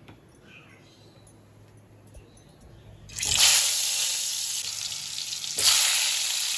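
Turmeric-and-salt-coated potatoes going into hot oil about three seconds in, setting off a sudden loud sizzle of frying; it surges again near the end as more go in. Before that, only faint kitchen clatter.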